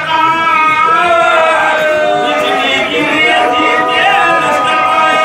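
Male voices, a lead reciter with boys joining in, chanting a marsiya lament in long held notes with a wavering pitch.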